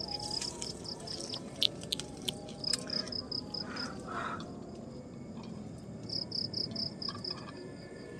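An insect chirping in three short bursts of rapid, high-pitched pulses, with a few sharp clicks and rustles of handling between them.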